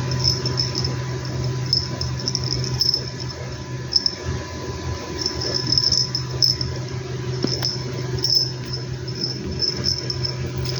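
Insects chirping in short, rapid high-pitched trills that repeat on and off, over a steady low hum.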